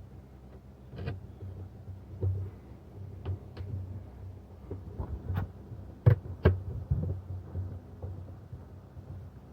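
Irregular light clicks and knocks of plastic intake parts, a plug connector and screws being handled and fitted in a truck's engine bay, with two sharper knocks about six seconds in.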